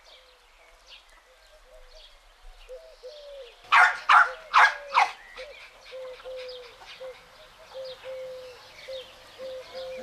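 A puppy gives four quick, sharp barks about four seconds in, over the steady low cooing of a dove and faint chirping of small birds.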